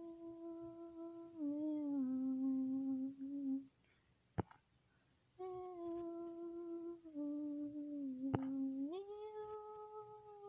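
A person humming a slow tune in long held notes, in two phrases with a short pause about four seconds in. A sharp click lands in that pause, and another about eight seconds in.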